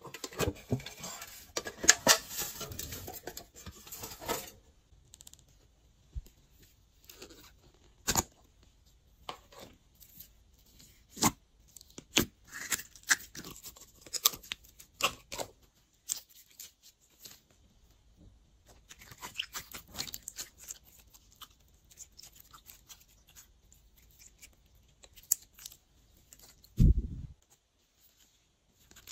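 Glossy slime being kneaded and stretched by hand: sticky crackles, pops and tearing sounds, densest in the first few seconds, with a dull low thud near the end.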